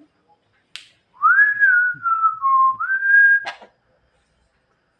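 A whistled phrase: a note rises and eases down in steps, then rises again and holds, with a sharp click just before it and another near its end.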